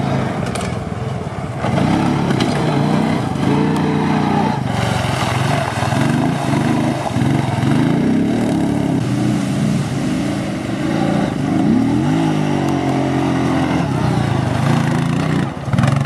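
Off-road 4x4 engine revving up and down over and over, the pitch swinging repeatedly, with a deep drop and climb back about twelve seconds in.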